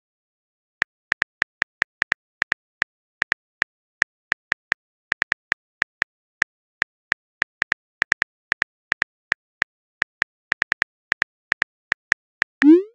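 Simulated phone keyboard typing clicks: a quick, slightly uneven run of short, identical clicks, about four a second, one per letter as a text message is typed. Near the end comes a short rising swoosh.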